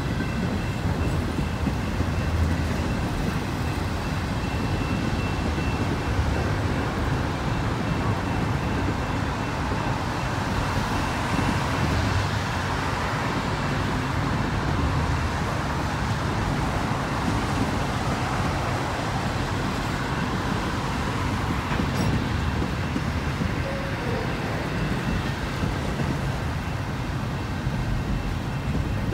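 Double-stack intermodal freight train's container well cars rolling past: a steady rumble of steel wheels on rail. A faint, thin high tone runs through the first several seconds.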